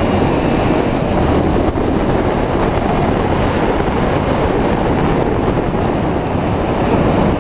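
Heavy wind buffeting on the camera's microphone while riding a Yamaha motorcycle at speed, with the bike's engine running steadily underneath.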